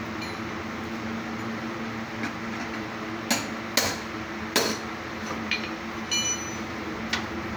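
Three sharp knocks, like hammer blows, over a steady low hum, with a brief high metallic clink a little after six seconds in.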